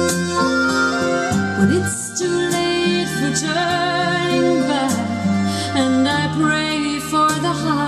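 Instrumental break of a folk ballad recording: sustained chords with a wavering melody line over them, played back through a restored Sansui AU-777 amplifier under final test.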